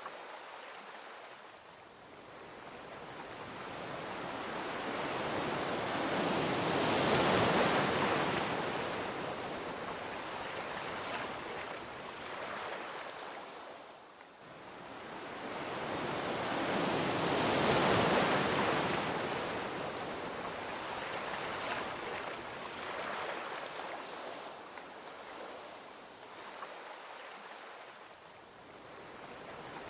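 Gentle ocean waves rolling onto a beach: two slow swells of surf, each building over several seconds and then washing out, about ten seconds apart.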